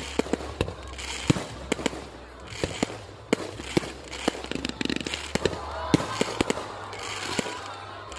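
Aerial fireworks shells going off: sharp bangs at uneven intervals, several close together at times, with crackling between them.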